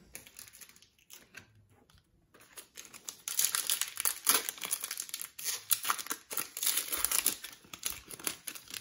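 Foil wrapper of a 2022-23 Optic basketball trading-card pack crinkling and tearing as it is ripped open by hand, a dense run of crackles starting about two seconds in after faint handling sounds.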